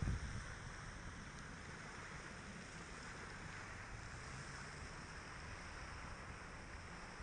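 Faint outdoor ambience: a steady, even hiss with light wind rumble on the microphone, starting with a brief gust.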